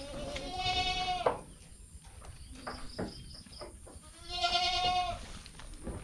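A goat bleating twice, each call about a second long and a few seconds apart, with a run of short high chirps in between.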